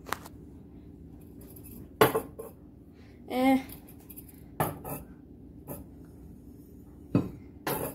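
Kitchen storage canisters being set down and shifted on a granite countertop: a series of short knocks and clinks, the loudest about two seconds in.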